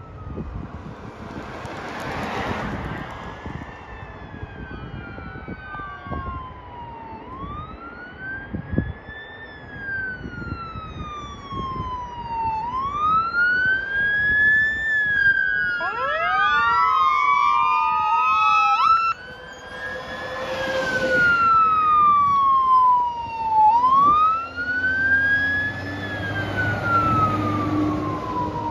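Fire engine sirens wailing, rising and falling about every four seconds, with a second siren's faster sweeps overlapping for a few seconds past the middle. Several vehicles pass with tyre and engine noise, the last a wildland fire engine with a low diesel rumble.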